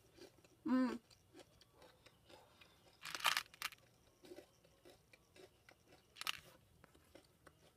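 Crunching and chewing of nacho-cheese-flavoured, cheese-filled pretzel nuggets from an MRE. The loudest crunches come about three seconds in and again about six seconds in, with softer chewing between.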